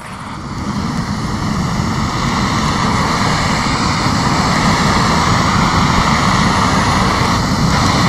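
Butane gas torch on a screw-on canister burning with a steady jet-flame roar as it lights kindling. The sound swells over the first second or so, then holds level.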